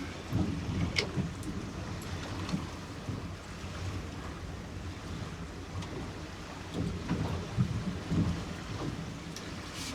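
Wind buffeting the microphone over choppy water slapping a small boat, an uneven low rumble with a few sharp clicks.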